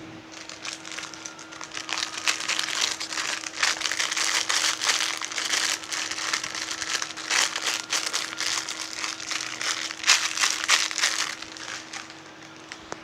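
Wrapping crinkling as it is handled: a dense, irregular run of small crackles that starts just after the beginning and dies away near the end.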